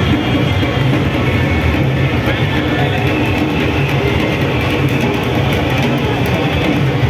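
Loud, steady music with plucked guitar.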